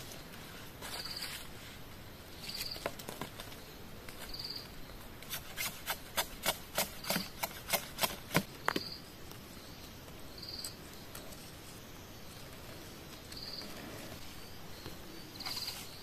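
A quick run of about a dozen sharp knocks, roughly three a second, from bamboo being struck as it is worked by hand. Behind them a short high chirp repeats every two seconds or so.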